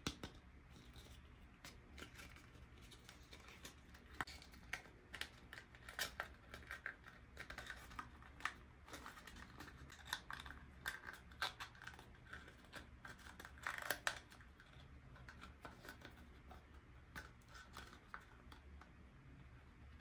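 Small toys and packaging being handled: scattered faint clicks, taps and rustles throughout, with a louder rustling cluster about 14 seconds in.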